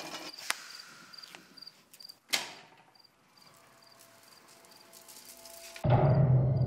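Crickets chirping steadily in a night ambience, with a brief sharp noise about a third of the way in. Near the end a loud, low droning music sting starts suddenly.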